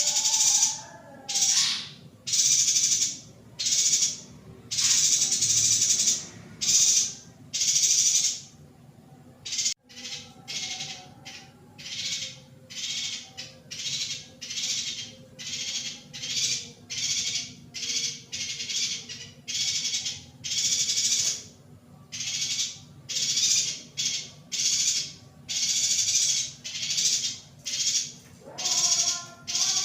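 Female yuhina calling over and over: short harsh, hissy chattering calls, about one to one and a half a second, faster after a brief break about ten seconds in. A lower pitched sliding sound comes in near the end.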